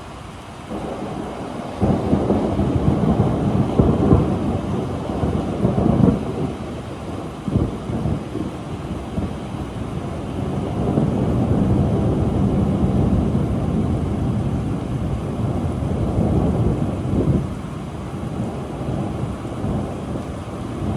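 Rolling thunder over steady rain: the rumble builds about two seconds in, peaks several times, and rolls on for many seconds before easing, with another swell near the end.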